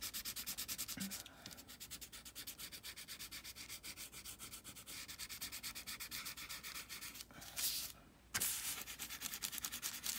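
Graphite pencil scratching back and forth over tracing paper in fast, even strokes, about five or six a second, with a short break near the end. The lead is being rubbed all over the back of the sheet to coat it with graphite for transferring a drawing.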